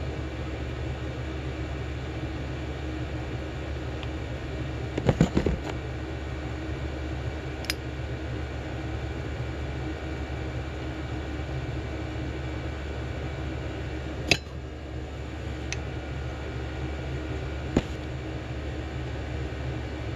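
Steady hum of a shop heater's fan, with a short cluster of small knocks about five seconds in and a few sharp single clicks later from small carburetor parts and a metal pick being handled.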